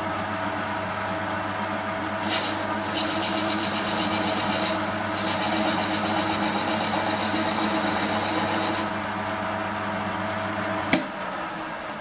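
Chinese CQ9325 bench lathe running with a steady motor hum while a tailstock drill bit bores into the end of a spinning wooden handle, adding a rough high hiss from about two seconds in until a few seconds before the end. Near the end a click as the lathe is switched off, the hum stops and the chuck spins down.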